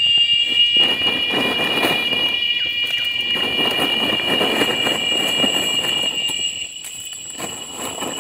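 A chorus of cicadas buzzing in the forest, a steady, shrill, loud drone that cuts out about six and a half seconds in. A thinner, higher insect tone carries on under and after it.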